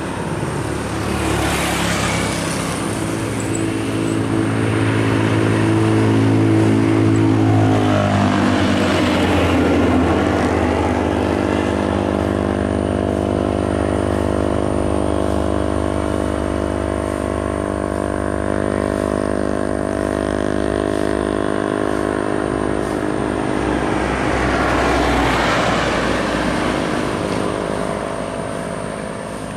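A heavy diesel truck passes close, its engine note dropping in pitch about eight seconds in, then a coach bus's diesel engine drones steadily as it approaches along the highway. Passing traffic swishes by briefly near the start and again near the end.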